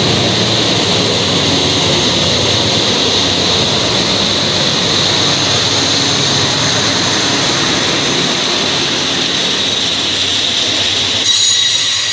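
Diesel-electric freight locomotives passing close by, engines running and wheels rumbling over the rails in a steady loud din with a thin high wheel squeal. About a second before the end the low rumble drops away and the squeal rings out more sharply.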